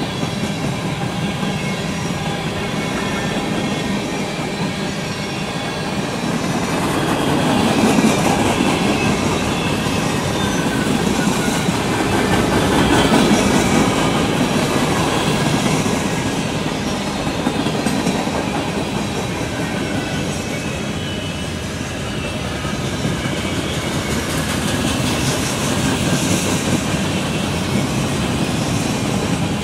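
Cars of a CSX freight train rolling past at close range: a steady, loud rumble and clatter of steel wheels on the rails, swelling a little twice along the way.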